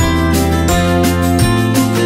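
Background music with guitar and a steady beat.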